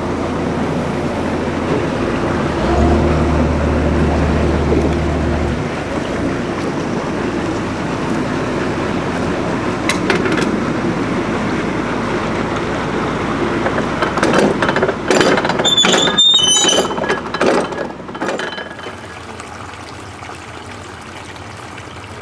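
Narrowboat's engine running steadily at low revs as the boat moves through a canal lock, briefly heavier about three seconds in. Near the end come several sharp metallic clinks and knocks, and then the engine noise falls away to a quieter wash of water in the lock.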